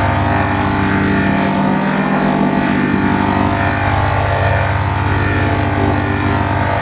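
Loud, heavily distorted layered audio: many pitch-shifted copies of one sound stacked into a dense, buzzy drone of held tones. It sounds engine-like and is steady throughout, the edited 'G Major' kind of sound effect.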